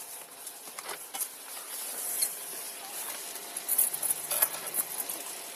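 Rustling and scattered light clicks from a body-worn camera rubbing against a uniform as the wearer climbs out of a car seat. There is a quick cluster of small sharp ticks and clinks about four seconds in.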